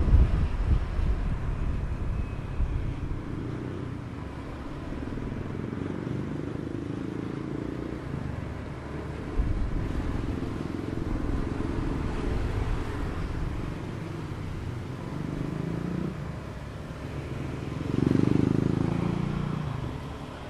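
Motor scooter engine running while riding, with road and wind noise. Its pitch shifts up and down, and the sound swells louder about eighteen seconds in.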